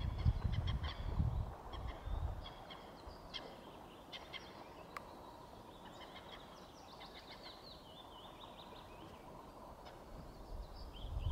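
Small birds chirping and calling, with a quick trill of notes near the middle. A low rumble is loudest in the first two seconds.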